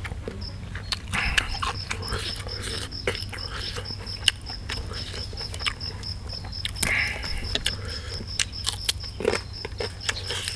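Chewing and mouth noises of a man eating beef larb with raw vegetables, many small wet clicks and crunches. A faint insect chirps steadily behind it, about four or five chirps a second.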